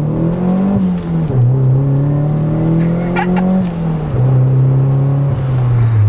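Toyota MR2's turbocharged 3S-GTE four-cylinder engine under acceleration, heard from inside the cabin. The revs climb and drop at an upshift about a second in, climb again and drop at a second shift a little before four seconds in, then hold steady.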